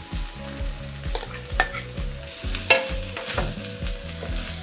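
Cooked rice scraped with a metal spoon from a bowl into a wok of vegetables frying in oil, then stirred in. The frying sizzles under the scraping, with a few sharp clinks of the spoon against the bowl and pan.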